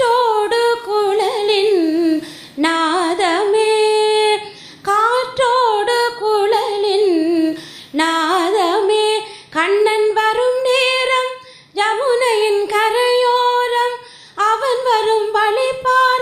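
A woman singing solo without accompaniment, a slow melody in about six long, ornamented phrases that glide and waver in pitch, with short pauses for breath between them.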